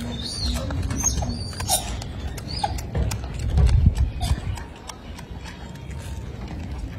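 Golden snub-nosed monkey chewing food held to its mouth: irregular crunchy clicks. A few short high chirps come in the first three seconds, and a low rumble swells about three and a half seconds in.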